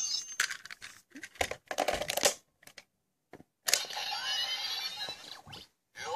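Plastic clicks and snaps of a Lemon Energy Lockseed being fitted and locked into a toy Genesis Driver belt. A few seconds in, another click sets off the belt's electronic sound effect with sweeping tones, and its "Lock On!" call starts at the very end.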